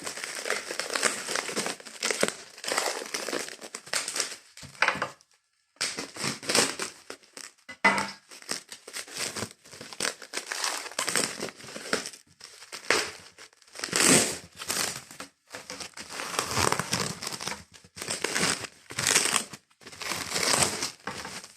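Plastic crinkling and rustling in irregular bursts with short pauses, as a plastic bag or wrap is handled around cut watermelon to go into the fridge.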